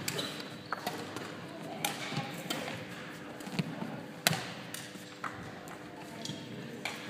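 Badminton rally: sharp, irregular racket strikes on a shuttlecock, the loudest a little past four seconds in, with thuds of footfalls on a wooden sports-hall floor.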